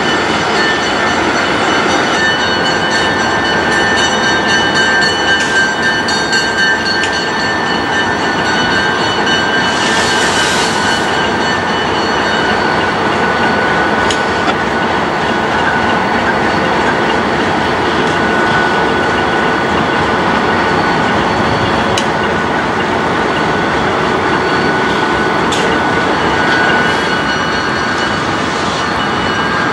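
Diesel locomotive engines running close by: a steady loud drone with thin, steady high tones through it, and a brief hiss about ten seconds in.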